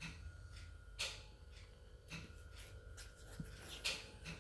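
Faint rustling and scratching of a puppy wriggling on a fabric blanket, with a few sharp ticks, the loudest about a second in and near the end, over a faint steady hum.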